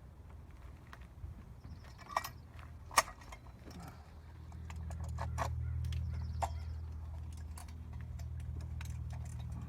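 Light metallic clicks and clinks of parts and hand tools being handled in a car's engine bay, with two sharper clicks about two and three seconds in. A low steady rumble swells in from about halfway.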